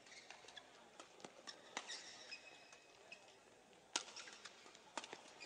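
Badminton rackets striking a shuttlecock in a doubles rally: a sharp crack about four seconds in and another a second later. Before it, short squeaks of court shoes on the indoor court floor.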